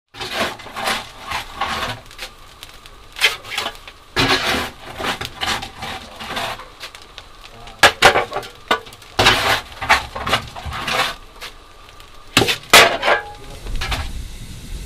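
Steel coal shovel scraping and clanking as a steam locomotive's firebox is hand-fired, in several bursts of shovelfuls. Near the end this gives way to the steady low rumble and hiss of the idling ALCO 2-8-0 steam locomotive.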